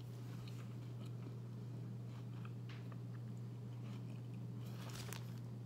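A person chewing a mouthful of Impossible Whopper with her mouth closed: soft, scattered wet clicks of chewing, with a brief cluster of sharper mouth clicks about five seconds in. A steady low hum runs underneath.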